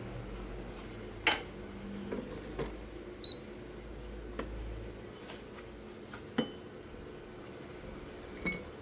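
A few light clicks and knocks of espresso tools being handled, with a short electronic beep about three seconds in. A low hum underneath stops about five seconds in.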